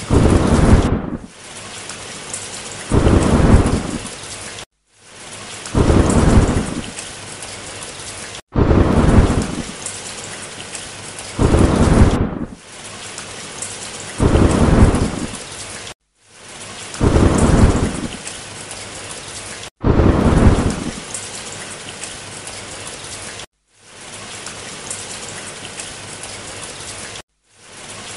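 Thunderstorm sound effect: steady rain hiss with a low rumble of thunder every three seconds or so, broken by brief total dropouts where the looped track restarts. The last several seconds are rain alone.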